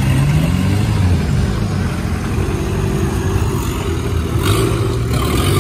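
An off-road 4x4 vehicle's engine running at low revs, its pitch shifting slightly, with a brief hiss about four and a half seconds in.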